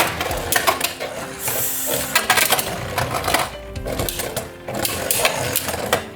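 Beyblade spinning tops whirring and clashing in a plastic stadium: a rapid, irregular clatter of plastic-and-metal hits as they spin and collide. Background music plays underneath.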